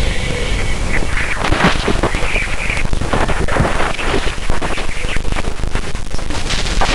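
Spacecraft radio recording of plasma waves around Jupiter's moon Ganymede, played back as audio: dense crackling static made of many short noisy bursts over a steady low rumble, with faint whistling tones near the start.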